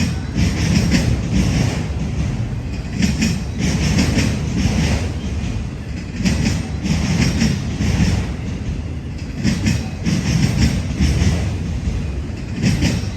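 Freight cars of a CSX manifest train rolling past, wheels clicking over rail joints in repeated clusters every second or two over a steady low rumble.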